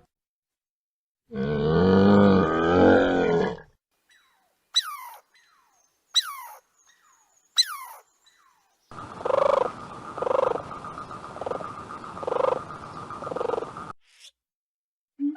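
A run of separate animal calls: first a loud, rough roar-like call lasting about two seconds, then three short, sharp calls falling in pitch, and then five evenly spaced pulsing calls, about one a second, over a steady hiss.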